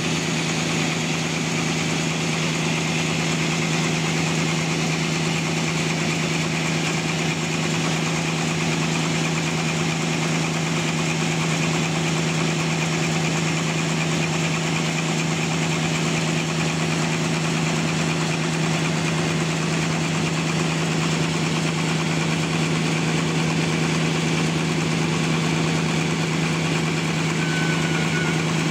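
Sawmill's engine running steadily at one constant pitch, with a strong even hum.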